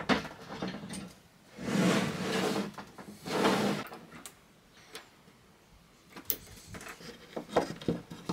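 Metal desk-PC case pushed into its bay under a desk like a drawer: a knock, then two scraping slides about a second apart. After that, small clicks and rustles of cables being fed up through a hole in the desktop.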